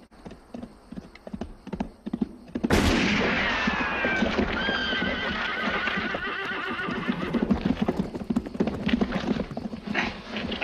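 Horses galloping, with hoofbeats. A horse whinnies loudly about three seconds in, its pitch falling.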